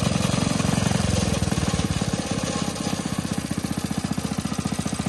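Rebuilt 1947 Clinton single-cylinder air-cooled engine running on its first start-up after the rebuild, with a fast, even beat of firing strokes that gets slightly quieter about halfway through.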